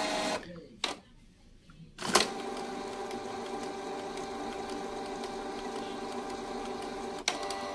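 Canon G3010 inkjet printer running its ink-refresh cycle, pulling ink into the empty supply tubes: a steady mechanical whir with a few steady tones. It starts with a click about two seconds in, after a brief quiet gap, and there is another click near the end.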